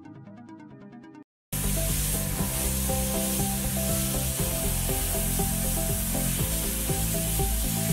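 Bodor laser cutting machine cutting sheet steel: a loud, steady hiss that starts abruptly about a second and a half in, after electronic music and a short dropout, with music still running underneath.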